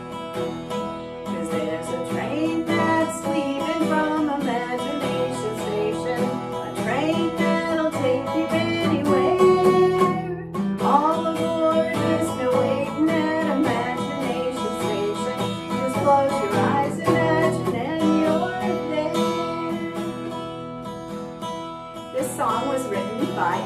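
A woman singing while strumming an acoustic guitar, with a brief break in the music near the middle.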